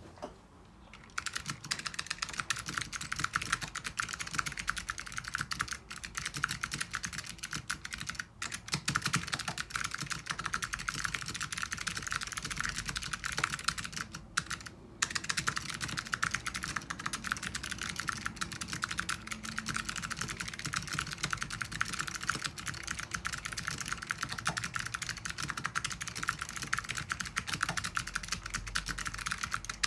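Fast continuous typing on a mechanical keyboard with clicky Alps SKCM Blue switches on a carbon plate: a dense, crisp clatter of keystrokes. It starts about a second in and pauses briefly twice.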